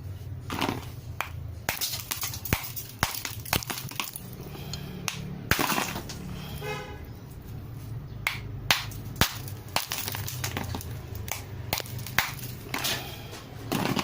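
Irregular clicks and crunches of ice being broken and handled, with a short pitched tone about halfway through.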